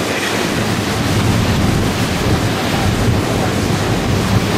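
Loud, steady rush of wind buffeting the microphone over churning water in a fast boat's wake.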